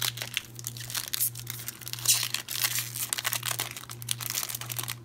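A foil Pokémon booster pack wrapper being handled and ripped open by hand: crinkling and tearing in a run of sharp crackles, loudest about two to three seconds in.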